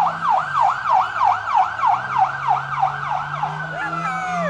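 Emergency-vehicle siren on a fast yelp, its pitch sweeping up and down about three times a second, then switching to a single long tone that slowly falls near the end.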